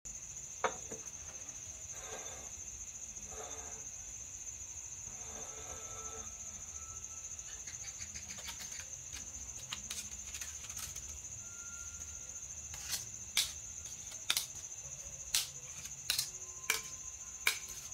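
A steady high-pitched insect trill like crickets, with a single click near the start and soft scrapes as steel blocks are handled on a steel plate. In the last five seconds, a run of sharp clinks as thin abrasive cutting discs are set down on the steel.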